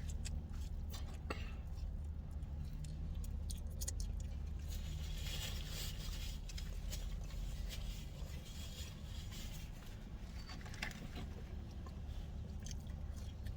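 Eating sounds: chewing, with rustling and small clicks of food wrappers, over a steady low hum inside a car.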